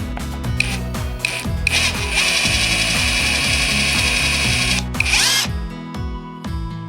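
A cordless drill drilling into wood: a few short trigger blips, then a steady run of about three seconds, and a last short burst before it stops.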